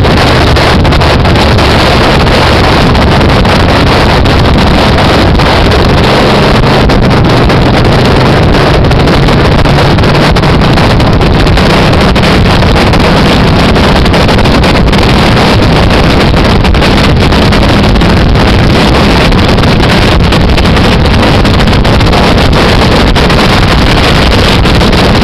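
Heavy wind buffeting on the microphone from a motorcycle riding at highway speed, with the motorcycle's engine running steadily underneath.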